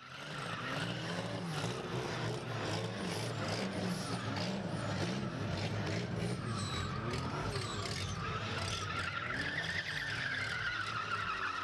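Chevette's swapped turbocharged VW AP 2.0 four-cylinder engine running hard under drifting, with tyres squealing in a long wavering squeal that rises near the end.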